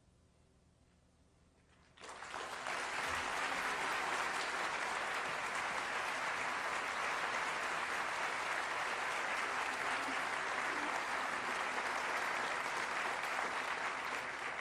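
A concert audience applauding. After a hush of about two seconds, the clapping starts suddenly and then runs on as steady applause.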